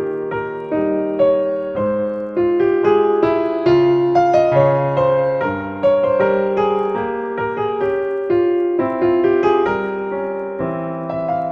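Background piano music: a melody of struck notes, each fading away, played over lower held notes.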